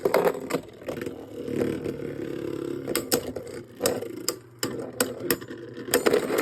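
Two Beyblades spinning against each other in a plastic stadium: a steady whirring, broken by sharp plastic clacks as they hit. The hits come more often in the second half, and the last ones near the end are the two tops bursting apart.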